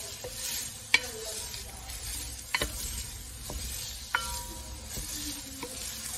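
Diced onions sizzling as they sauté in an enamelled cast-iron pot, stirred and scraped with a wooden spatula. A few sharp knocks of the spatula against the pot break in, the loudest about a second in.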